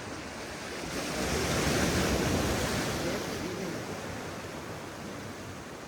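Ocean waves washing on the shore: one swell of surf builds about a second in and slowly fades away.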